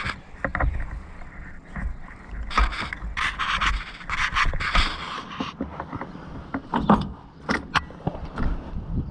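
Rubber hydraulic hose being worked by hand in among the tractor's hydraulic lines, with a jacket sleeve brushing close to the microphone. The sound is irregular rubbing and scraping with scattered clicks and knocks, densest a few seconds in.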